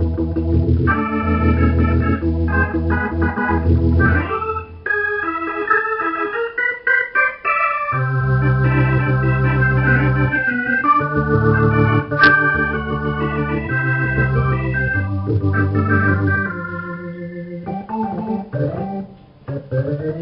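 Organ sound from a Roland VR-09 combo keyboard, played as held chords over a low bass line, with pitches sliding upward near the end.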